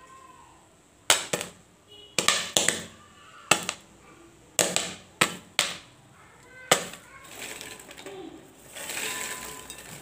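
Popcorn kernels popping in an open pressure cooker: about ten sharp, irregular pops. Near the end comes a rustling as the popped corn is tipped into a bowl.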